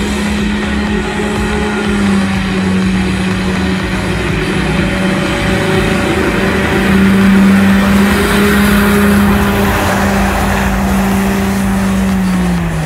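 A small vehicle's motor running at a steady pitch, dropping in pitch near the end as it slows.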